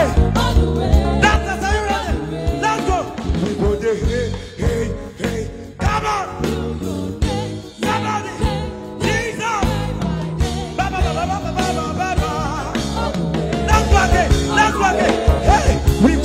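Live gospel music: a man singing into a microphone over a band accompaniment with a steady beat.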